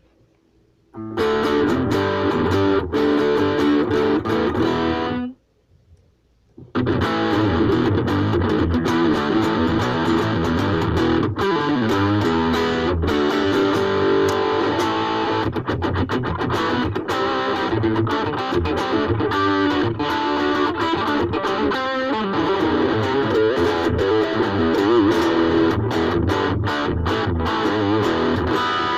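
Ibanez AXS42 electric guitar with a vintage capacitor fitted, played through an amplifier. A phrase of about four seconds, a short pause, then continuous playing.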